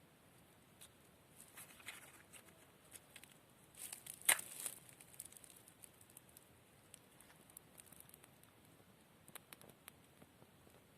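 Dry grass tinder and twigs crackling and rustling, with scattered small clicks and one sharper crack about four seconds in.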